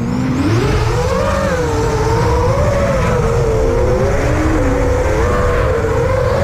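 FPV quadcopter's motors and propellers whining, the pitch climbing in the first half-second and then wavering up and down as the throttle changes, over a heavy rush of wind and prop wash.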